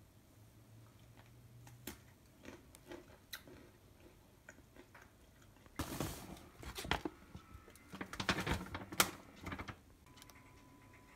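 A few faint clicks, then, from about halfway through, loud clusters of noisy bursts and taps as flour is shaken from a plastic container onto baby octopus in a stainless steel colander.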